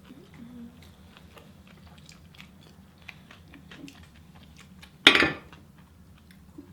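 Close-miked mouth sounds of people chewing and biting food, a run of small wet clicks. About five seconds in comes one short, loud, noisy burst, much louder than the chewing.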